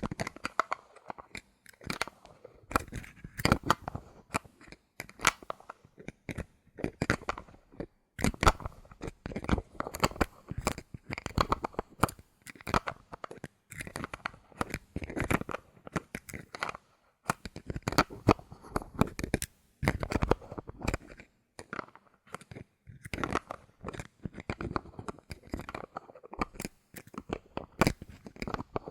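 Bottle caps handled close to the microphone: quick irregular clicks, taps and scratches in short clusters with brief pauses.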